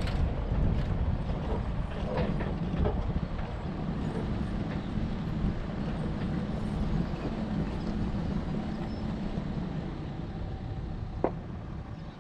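Four-wheel-drive vehicle driving a dirt trail: steady low engine and road rumble with scattered knocks and rattles, and a sharp click about eleven seconds in.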